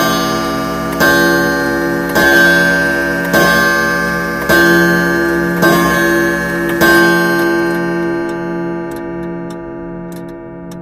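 Bell-like quiz timer sound effect: a ringing tone re-struck about once a second, seven times, then fading away over the last few seconds.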